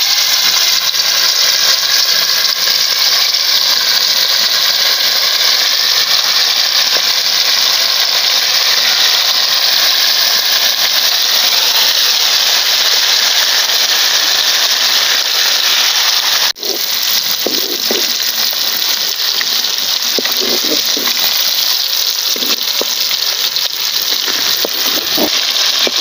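Masala-marinated carp pieces deep-frying in hot oil in a wide metal kadai: a loud, steady sizzle. It breaks off for an instant about two-thirds of the way through, then carries on.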